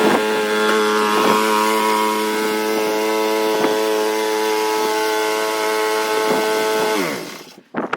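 Snowblower engine running steadily at a constant speed, then shut off about seven seconds in, its pitch falling as it winds down and stops.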